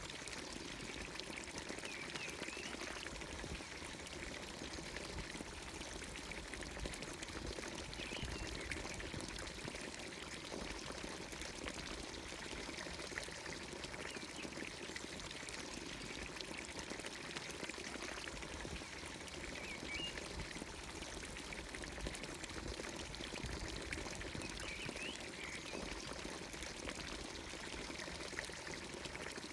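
Water from the spout of a village fountain pouring steadily into its stone trough, with short bird chirps now and then.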